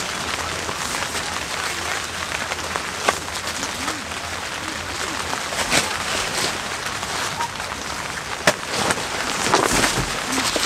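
Steady rain pattering on tent fabric close by, with a few sharp taps. Near the end, the rustle of a tarpaulin being shaken out joins in.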